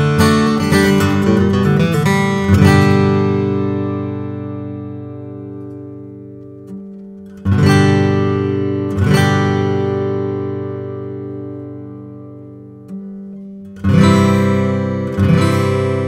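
Martin D-28 Authentic 1931 acoustic guitar, a 12-fret dreadnought with Madagascar rosewood back and sides, being played. A quick run of picked notes gives way to full strummed chords, about five in all, each left to ring out and fade for several seconds.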